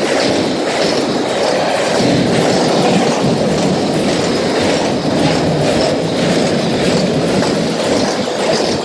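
Double-stack container freight train of well cars rolling past at a level crossing: a steady, loud rumble of steel wheels on rail with a faint repeating clatter from the wheels.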